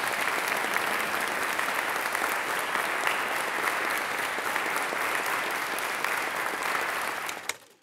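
Audience applauding: dense, even clapping that fades out quickly near the end.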